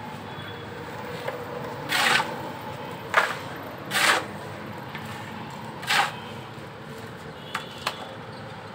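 A steel shovel scraping and scooping wet cement mix off a concrete floor: four short, loud scrapes a second or two apart, then two short clicks near the end.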